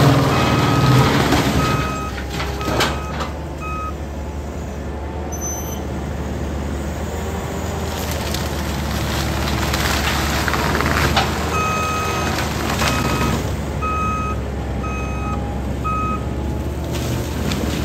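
New Holland C337 compact track loader running hard with its disc mulcher spinning and chewing through brush. The loader's backup alarm beeps in two runs, once near the start and again in the second half.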